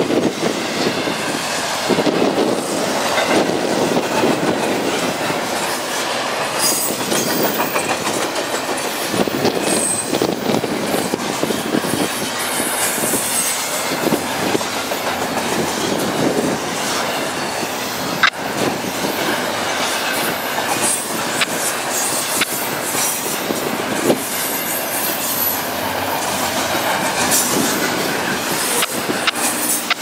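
CN double-stack intermodal freight train rolling past, its well cars carrying containers. Steady rolling noise of wheels on rail, with scattered sharp clicks and a few brief high-pitched wheel squeals.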